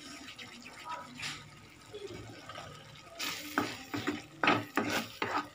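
A ladle stirring thick masala gravy in a metal pan: soft wet strokes, coming quicker and louder in the second half.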